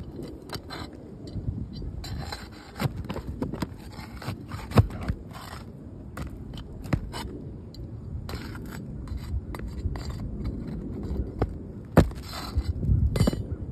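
Metal pry bar scraping and clicking against asphalt shingles as they are pried up, in irregular strokes with a few sharp cracks.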